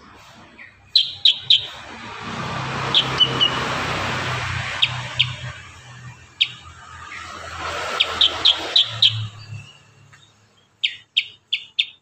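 Kurincang, a black-headed yellow bulbul, calling in tight volleys of short, sharp notes, three to six in quick succession with pauses between. A rushing background noise swells and fades through the middle.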